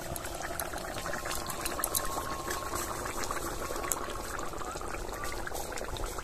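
Doi aloo, potato curry in yogurt gravy, simmering in a pot: a steady soft hiss with many small scattered pops.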